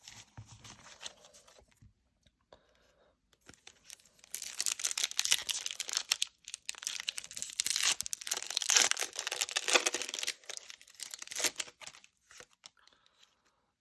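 Pokémon TCG booster pack's foil wrapper being crinkled and torn open, with a dense crackling that starts about four seconds in and stops shortly before the end.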